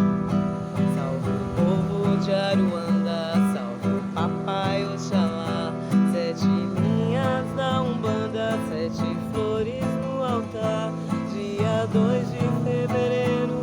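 Music: a strummed acoustic guitar with a gliding melody line over it.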